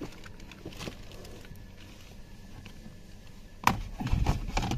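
Hard plastic steering-column parts handled by hand: a faint click or two, then about three-quarters of the way in a sharp plastic click followed by a few quick knocks as the column cover and clock spring are moved.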